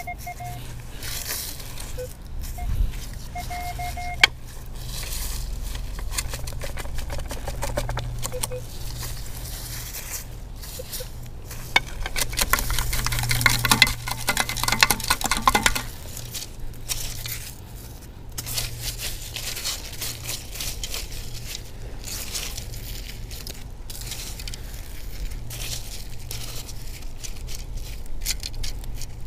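Minelab Equinox 600 metal detector giving short beeps on a buried target near the start and again about three seconds in, then a long stretch of a sand scoop digging and sifting beach sand and gravel, with crunching and small stones and shells rattling, loudest from about twelve to sixteen seconds in.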